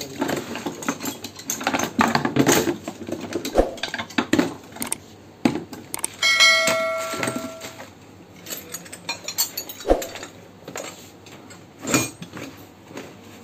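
Metal hand tools and plastic tool-box trays being handled and packed away: an irregular clatter of clicks, knocks and jangles. About six seconds in, a clear ringing tone sounds for a second or so and fades.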